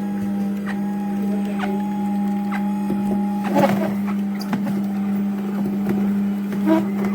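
Electric motor of a cold-press slow juicer running with a steady hum, with scattered clicks and a crackly patch about halfway through and again near the end.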